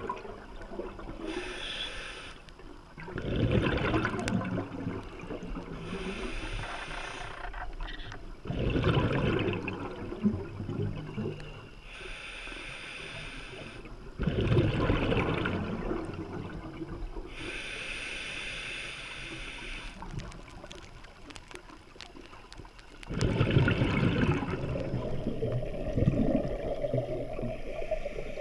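Scuba diver breathing through a regulator underwater: a hissing inhalation alternating with a rush of bubbling exhaust, about every five seconds. The bubble noise gets louder and denser about two-thirds of the way through.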